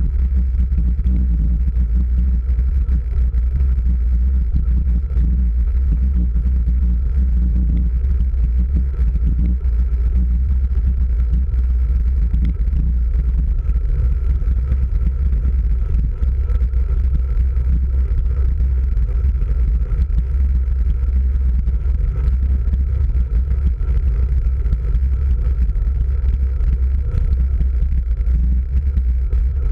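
Wind buffeting the microphone of a camera mounted on a road bike's handlebars while riding, a steady low rumble mixed with tyre noise on asphalt.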